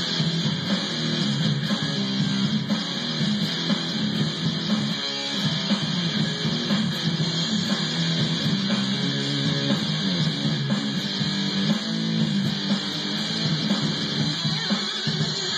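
Les Paul-style electric guitar played through an amplifier: a rock guitar solo with steady, unbroken playing.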